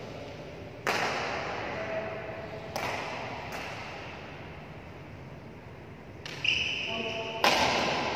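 Badminton racket strings smacking a shuttlecock, about five sharp hits with echoing tails, loudest about a second in and near the end, with brief sneaker squeaks on the court floor just before the last hit.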